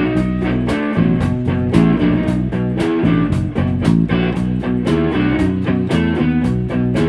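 Live electric blues band playing an instrumental passage: electric guitar over bass and drums keeping a steady beat.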